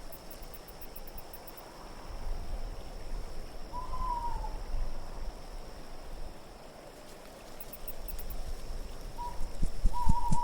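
Night ambience of wind rumbling and swelling in gusts, with an owl hooting twice: a short, slightly falling hoot about four seconds in and a longer one near the end.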